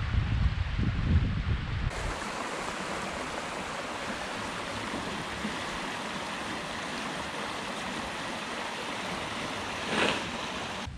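Wind buffeting the microphone for the first couple of seconds. Then the steady rush of river water churning through open water between ice shelves, with a brief louder surge near the end.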